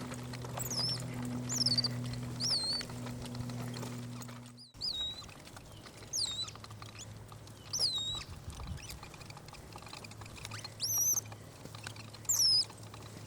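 A capuchin monkey making about eight short, high-pitched squeaky peeps, each falling in pitch and hooking at the end, spaced out every second or two. A low steady hum underneath cuts off abruptly about four and a half seconds in.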